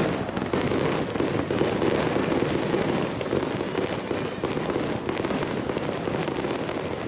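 Fireworks going off in a dense, continuous barrage of rapid cracks and bangs that run together without a pause.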